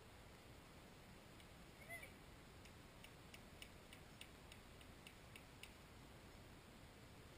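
Near silence with a faint steady hiss. About two seconds in comes one short high chirp, then a run of about a dozen faint, sharp ticks, three to four a second.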